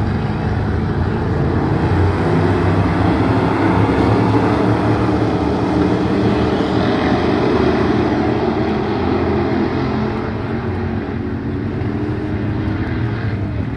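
A pack of stock cars racing past on a dirt oval, several engines running hard together. The sound swells as the field goes by, loudest about four seconds in, then fades as the cars move away into the turn.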